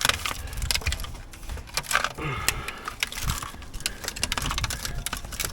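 Scattered, irregular metallic clicks and clinks of hand tools working on a car's corroded rear hub bolts.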